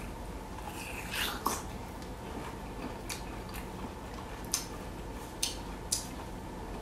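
A person chewing a mouthful of boiled bamboo shoot close to the microphone: soft wet mouth clicks and crunches, a small cluster about a second in, then single clicks every second or so.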